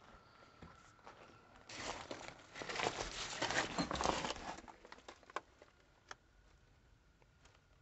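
A crinkling, crunching rustle lasting about three seconds, followed by a few separate light clicks.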